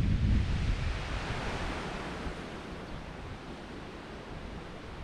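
Heavy wind buffeting the microphone, the low rumble of the gust dying down over the first two seconds and leaving a steady rushing hiss.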